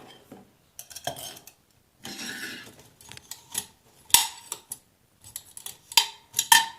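Aluminium Swiss Army Volcano Stove set (stove body, cup and canteen) clinking and knocking as its parts are handled and fitted together, with a short scrape about two seconds in and several sharper clanks with brief metallic ringing near the end.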